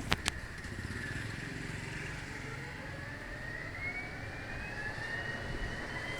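Moving vehicle: a steady low rumble of engine and road, with a thin whine that climbs slowly in pitch as the vehicle gathers speed. Two sharp clicks come right at the start.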